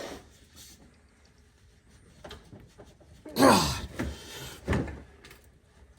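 A man straining and grunting with effort twice, each grunt falling in pitch, as he heaves on a ratchet to break loose a rounded-off oil drain plug with an extractor socket. A few faint clicks come before the grunts.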